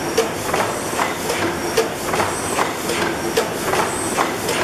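A 600-horsepower Snow-Holly Works (Worthington) horizontal reciprocating natural-gas engine-compressor running steadily. It gives an even mechanical clatter of about two and a half knocks a second over a constant hiss.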